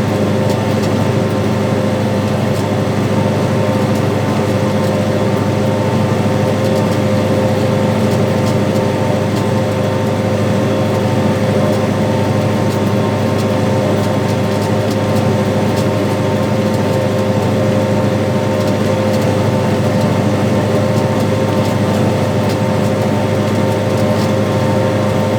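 Farm tractor's diesel engine running at a steady speed while pulling a seed planter, with an even, unchanging hum and no change in revs.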